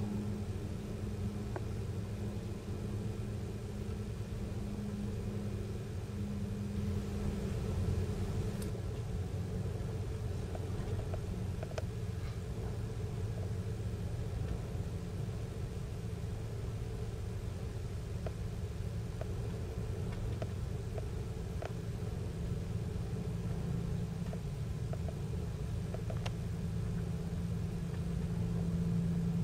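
Wind rumbling and buffeting on the microphone over a steady low engine hum. The hum fades out about a third of the way in and comes back stronger near the end.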